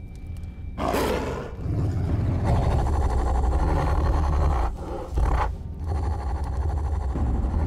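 Wolves growling and snarling, a deep continuous growl that starts suddenly about a second in, with two short breaks in the second half.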